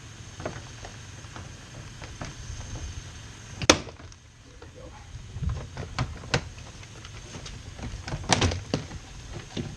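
Plastic retaining clips of a Kia's inside door trim panel popping loose as the panel is pried off the door: a loud sharp snap about four seconds in, then several smaller clicks and knocks of plastic against the door.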